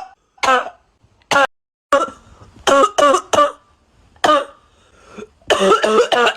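A person coughing in a string of short, harsh, voiced coughs. Single coughs alternate with two quick runs of several coughs in a row, about a third of the way in and near the end.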